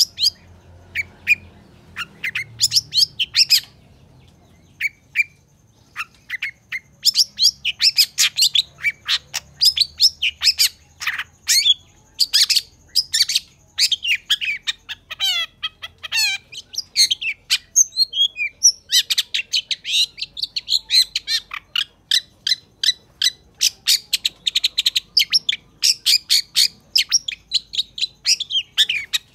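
Long-tailed shrike (cendet) singing: rapid runs of short, sharp chattering notes. The notes come sparsely for the first few seconds, then in dense runs, with a brief break about two-thirds of the way through.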